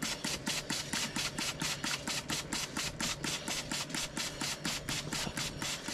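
Trigger spray bottle pumped rapidly, about six short hissing squirts a second in a steady rhythm, rinsing water onto a motorcycle drive chain.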